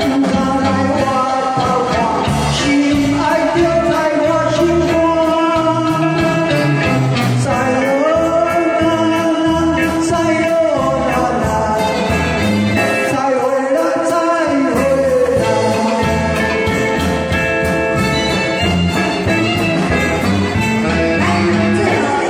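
A man singing a sung-along song through a handheld microphone over a karaoke backing track with a steady beat, a woman singing along with him by the end.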